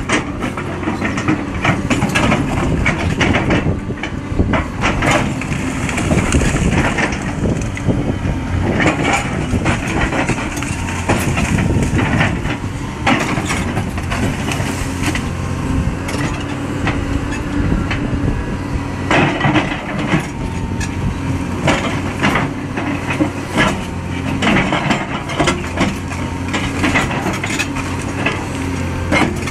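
Hydraulic rock breaker on a Caterpillar 336D excavator hammering into limestone, a rapid chatter of sharp blows and rock crunching. The excavator's diesel engine runs steadily underneath.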